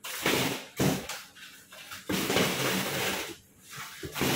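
TV packaging being handled and pulled open: a run of about five rustling, scraping noises of cardboard and plastic, with short gaps between them.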